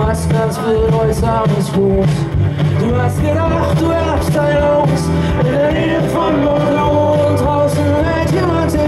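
Live band playing a pop song: keyboards and acoustic guitar over a steady bass line and drums, with a voice singing the melody.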